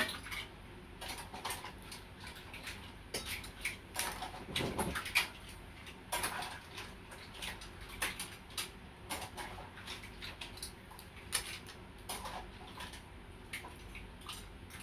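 Cooked green mussel shells clicking and clinking as they are handled and pried open by hand, knocking against each other and against plates in irregular, scattered clicks.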